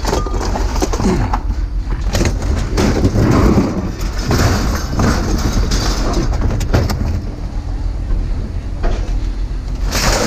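A vehicle running, with a steady low drone under rattling noise.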